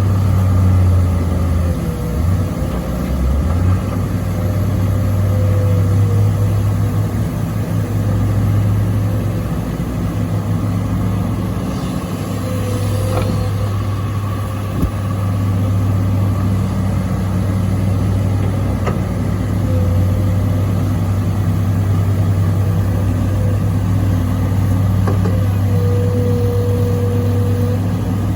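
Kobelco excavator's diesel engine running steadily as it works, with a higher whine that comes and goes and a few light knocks.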